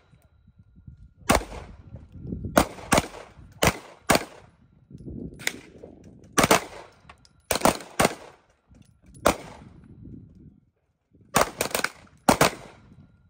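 Gunshots at a shooting range: about a dozen sharp reports at irregular intervals, several in quick pairs, each followed by a brief echo.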